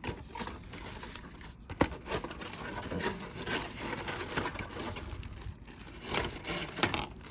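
Handling of a plastic model kit's cardboard box and parts: rustling with scattered light clicks and knocks, one sharper click about two seconds in.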